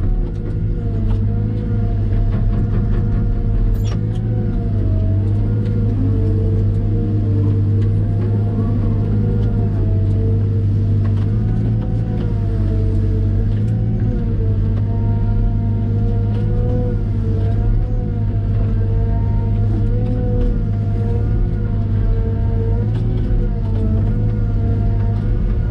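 Caterpillar M313D wheeled excavator running steadily, a deep diesel hum with a higher whine that wavers slightly up and down.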